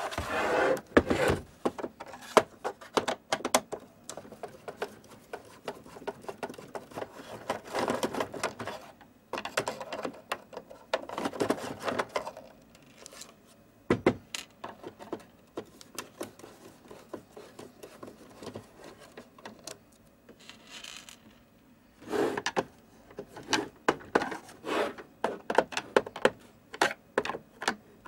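Irregular clicks, taps and scraping of small hard objects being handled, coming in several louder bunches with quieter stretches between.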